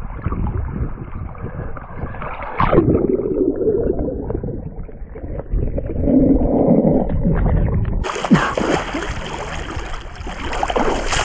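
River water churning and gurgling around a submerged camera, heard muffled from underwater. About eight seconds in, the camera breaks the surface and the sound turns clear, with water splashing and rushing close by.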